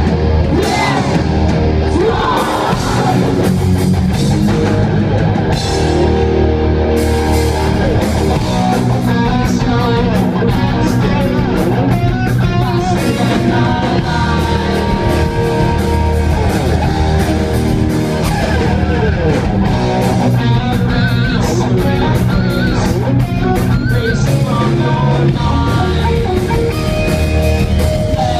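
Live rock band playing loud: distorted electric guitars, bass and drum kit, with a singer's vocals over them.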